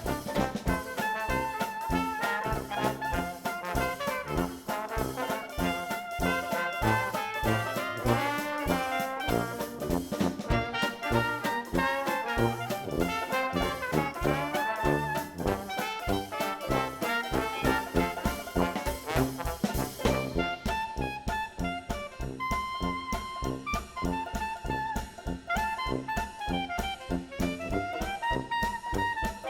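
Upbeat background music with brass instruments and a steady beat, jazzy in style; the highest notes drop away about twenty seconds in.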